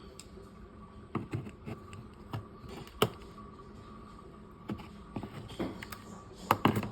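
Light plastic clicks and taps from handling the removed rear bumper reflector lamp unit and its clips, scattered irregularly, with the sharpest click about three seconds in and a quick cluster near the end, over a faint steady hum.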